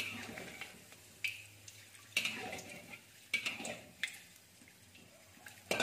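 Metal spatula and wire skimmer clinking and scraping against a steel wok as fried garlic cloves are lifted out of the oil: several sharp clinks, irregular and about a second apart, with a faint sizzle of hot oil after some of them.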